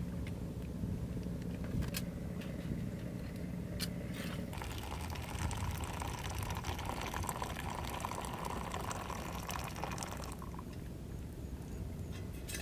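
Water poured from a camping pot into a stainless steel cup of rice, a steady splashing fill that starts about four and a half seconds in and stops near ten seconds. A couple of light clicks come before the pour.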